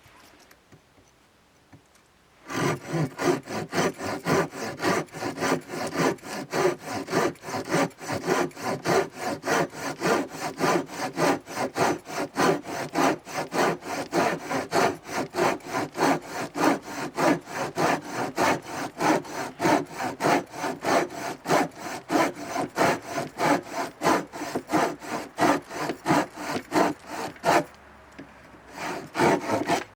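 Hand saw cutting through wood in steady back-and-forth strokes, a few a second. The sawing starts about two seconds in and stops a couple of seconds before the end. The saw is most likely the Silky F180 folding pruning saw.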